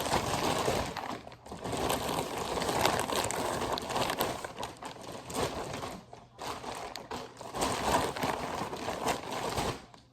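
Packaging crinkling and rustling as it is handled, in three long stretches with brief pauses between them, stopping just before the end.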